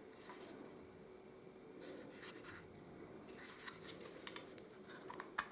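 Faint handling of a Zoraki M807 blank pistol: low rubbing and scraping, then a few small clicks, with a sharper click near the end.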